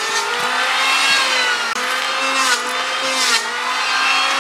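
Electric hand planer running on wood, a steady motor whine that wavers slightly in pitch as it cuts.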